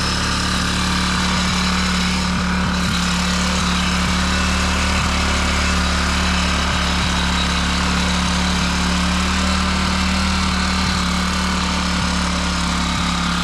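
Small petrol engine of a garden tiller running steadily at an even speed.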